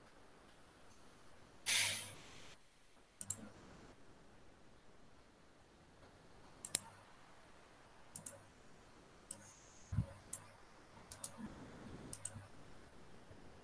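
About a dozen sharp clicks, scattered and often in quick pairs, with a short burst of noise about two seconds in that fades out over under a second.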